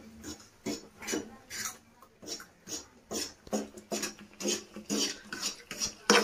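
A steel spoon stirring and scraping around a frying pan of bubbling jaggery syrup, in repeated short scrapes about two a second.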